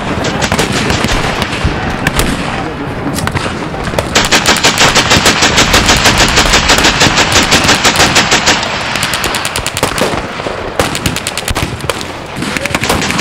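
Scattered rifle shots, then a machine gun firing blanks in one long unbroken burst of about four and a half seconds, the loudest part, followed by more scattered rifle shots.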